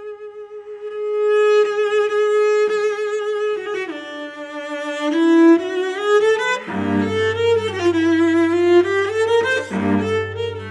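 Cello bowed in a slow, singing melody with vibrato: a long held note, then the line steps down, and from about seven seconds in a low note is held beneath the wavering melody.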